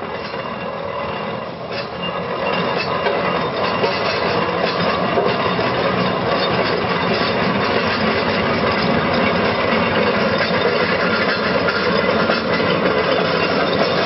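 Aveling & Porter compound steam road roller running, its steam engine and gearing making a dense mechanical rumble that grows louder about two and a half seconds in, then holds steady.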